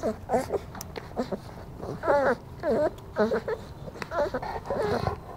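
Young mastiff puppies whimpering: a string of short, high whines, some rising and falling in pitch, one or two a second.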